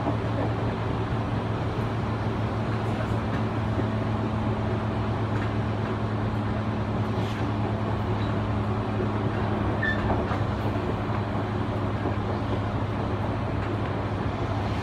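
Running noise heard from inside a JR 205-series electric commuter train travelling at a steady speed: an even rumble of wheels on rail with a steady low hum, and a few faint clicks.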